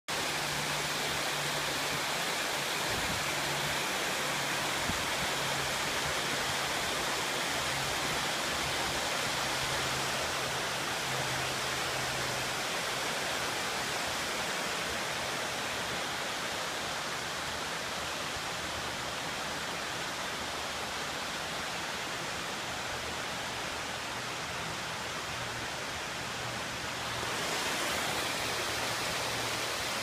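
Small sliding waterfall and creek: water rushing steadily over bedrock in a continuous, even hiss, a little louder and brighter near the end.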